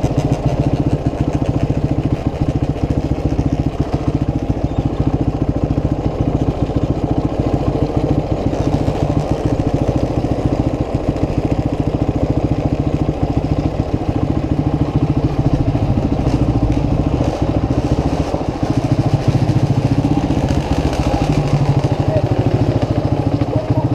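Motorcycle engine running at a steady, even speed, loud and without clear revving.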